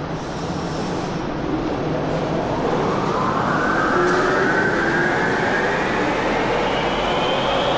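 Berlin U-Bahn train accelerating, its rumble joined about a third of the way in by an electric traction-motor whine that rises steadily in pitch as it picks up speed.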